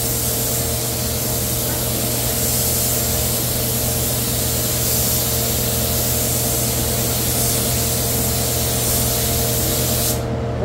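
Gravity-feed air spray gun hissing steadily as it sprays primer onto a truck's body panel, the hiss cutting off abruptly near the end when the trigger is let go.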